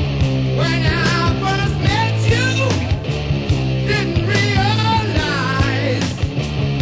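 Rock music with a steady drum beat, bass and a wavering sung or lead-guitar melody.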